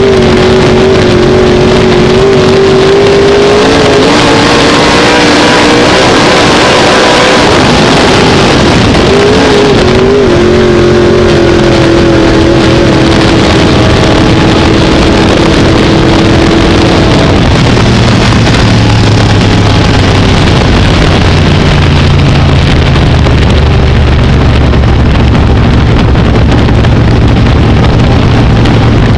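Dirt-track modified race car's V8 engine, heard loud from inside the cockpit while racing. Its pitch dips and rises as the driver lifts and gets back on the throttle. About halfway through, the pitch drops much lower and stays there.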